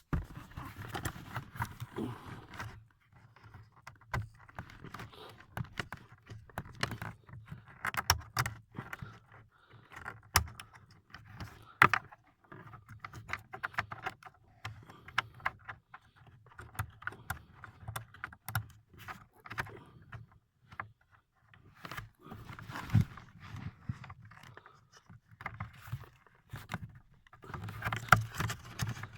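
Hands working inside the plastic centre console of a BMW E90 to push its AUX port back into place: irregular clicks, knocks and scraping of plastic trim, with rustling handling noise.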